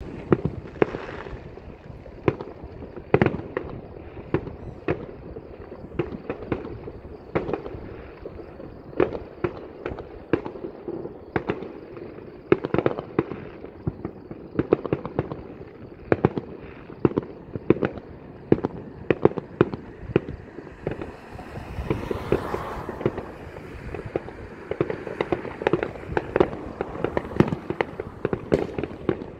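Many distant fireworks going off across a wide area: an irregular string of bangs and pops from aerial shells and firecrackers, often several a second. About three-quarters of the way through, a rushing noise swells and fades under the bangs.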